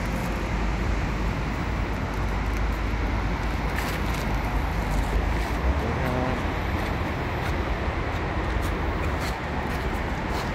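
Steady outdoor background noise with a low rumble.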